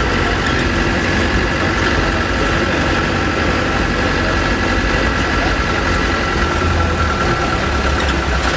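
Military vehicle's engine running steadily as it drives, heard from inside the cabin: a low rumble with a steady whine above it.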